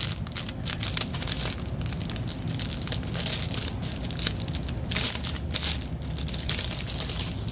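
Clear plastic packaging bag crinkling and rustling as a fabric face mask is handled and pulled out of it, in irregular crackles with no steady rhythm.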